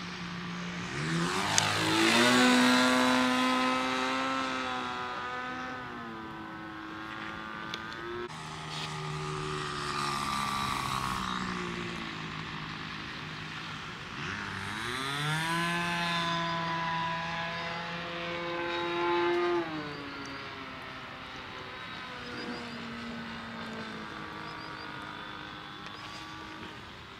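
Radio-controlled model airplane's engine and propeller in flight. Its pitch sweeps down sharply as the plane passes close about two seconds in, then changes several times with the throttle, rising again around fifteen seconds in as it climbs away.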